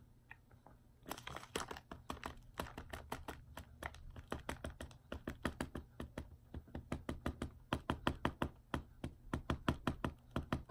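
A fast, irregular run of light taps or clicks close to the microphone, several a second, starting about a second in.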